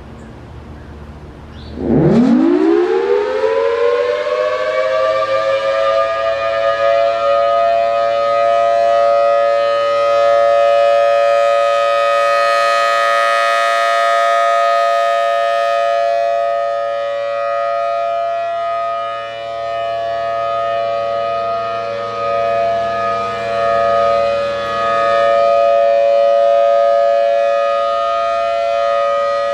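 Federal Signal Thunderbolt 1000T blower-driven warning siren starting up about two seconds in, its pitch climbing fast and then holding a loud steady tone for the full-alert signal. The tone has a rasp to it and swells and fades a little in loudness.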